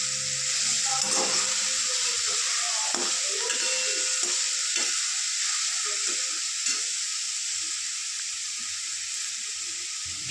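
Chopped onion, garlic and tomato frying in hot oil in a kadai, with a steady sizzle. A spatula scrapes and knocks against the pan now and then as it is stirred.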